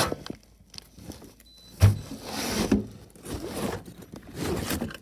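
Handling noise from a cordless drill and its gear being got out: a sharp knock about two seconds in, then stretches of rustling and scraping.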